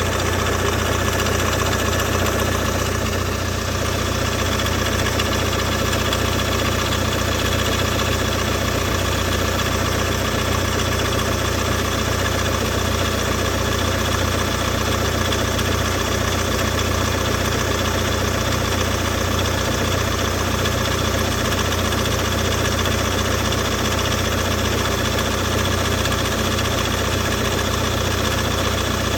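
Ford S-Max 1.8 TDCi four-cylinder turbodiesel idling steadily, with a rapid knock coming from the timing-belt end of the engine whose cause is unknown.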